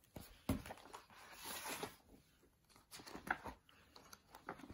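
Picture book being opened by hand, the cover lifted and the first pages turned. There is a faint tap about half a second in, a soft paper rustle around a second and a half, then a few light taps and brushes of hand on paper.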